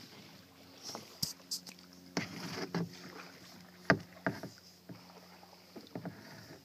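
Kayak being paddled: water swishing around the paddle and hull, with several sharp knocks of the paddle against the kayak hull.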